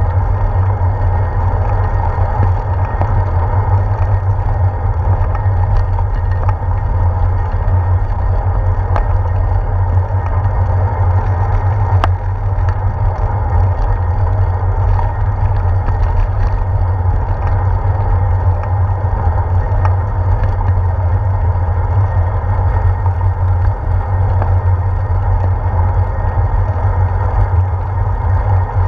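Steady rumble and wind rush from a bicycle rolling along a paved path, picked up by a handlebar-mounted action camera, with a light click about twelve seconds in.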